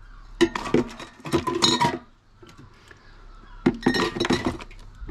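Drinks clinking and knocking against each other as they are packed into a cool box, in two bursts of clatter.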